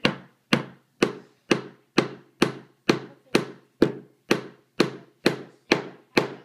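Hammer driving a nail into a block of scrap lumber: about fourteen sharp blows at a steady pace of roughly two a second, each dying away quickly.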